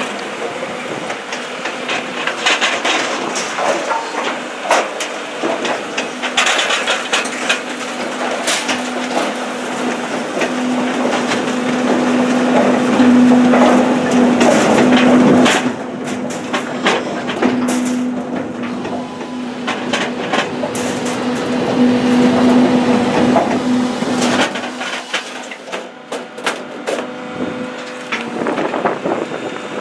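Posch firewood processor and conveyor running with a steady machine hum, while split firewood clatters and knocks as it drops from the conveyor into the packing hopper and bin. The hum stops about 25 seconds in, and the knocking of wood goes on.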